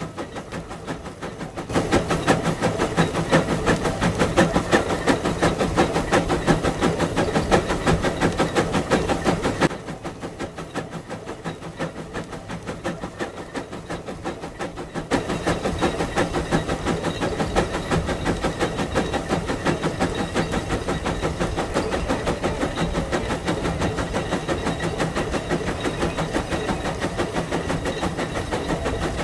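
Case 150 steam traction engine working under load pulling a gang plow, its exhaust chuffing in a rapid, even beat with some hiss of steam. The sound grows louder about two seconds in, drops back about ten seconds in, and rises again around fifteen seconds.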